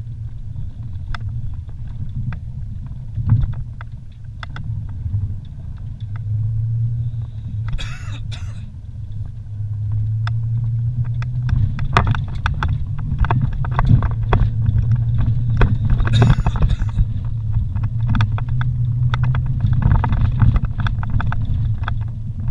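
Vehicle engine running with a steady low drone while driving slowly over a rough dirt road, with frequent knocks and rattles from the bumps and a couple of brief scraping hisses. The engine gets steadier and a little louder about halfway through.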